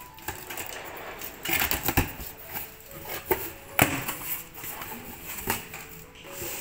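A cardboard box being opened: a box cutter slitting the packing tape, then the cardboard flaps pulled back, with scraping and rustling and several sharp cracks, the loudest near the middle.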